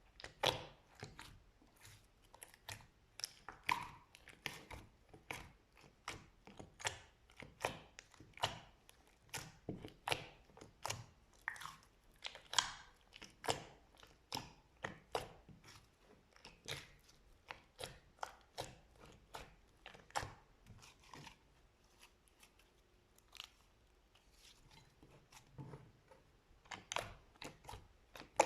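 Slime being squeezed and poked by hand, giving a continuous run of short, sticky clicks and pops, several a second, that thin out for a few seconds past the middle.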